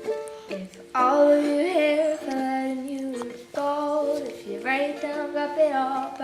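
A song with a young female voice singing long held notes over steady chord tones, the voice coming in about a second in.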